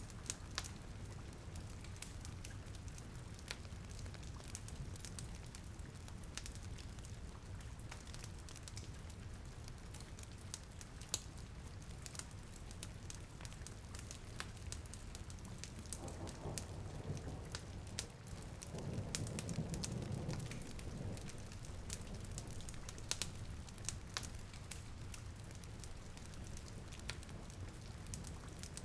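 Steady rain with a wood fire crackling and popping, as a cozy rain-and-fireplace ambience. A low rumble swells briefly a little past the middle.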